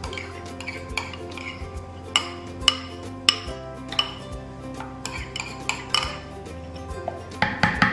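Metal spoon clinking and scraping against a ceramic bowl and the rim of a plastic blender jar while spooning out thick condensed milk: many short, sharp clinks at an irregular pace. Soft background music plays underneath.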